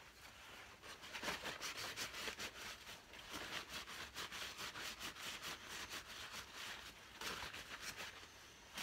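Faint rustling and rubbing of a paper towel wiping the lenses of a pair of glasses, in quick repeated strokes.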